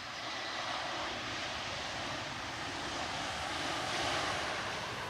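Jet engines of an Airbus A319 passing during its landing, a steady jet noise that swells to its loudest about four seconds in and then begins to ease off.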